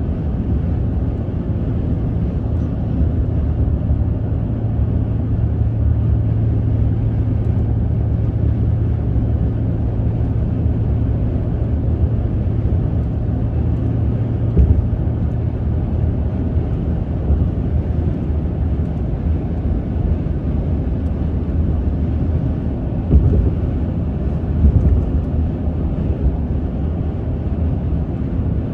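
Steady low rumble of road and engine noise heard inside a car's cabin while driving at highway speed, with a few brief thumps about halfway through and twice near the end.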